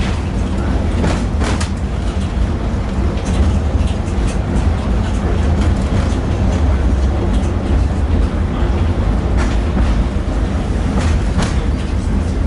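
Tatra T6B5SU tram running, heard from inside the car: a steady low rumble with scattered sharp clicks and knocks.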